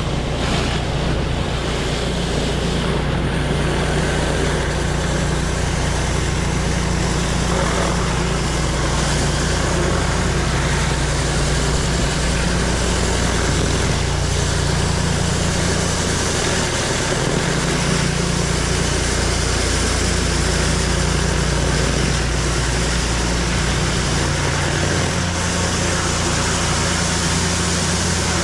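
Engine-driven pressure washer running steadily, with the hiss of water spraying from the wand as the house is rinsed.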